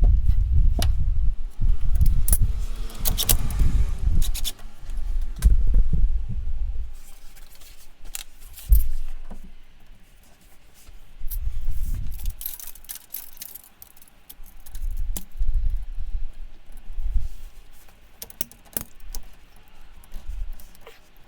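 Light metallic jangling and clicking over irregular low rumbling.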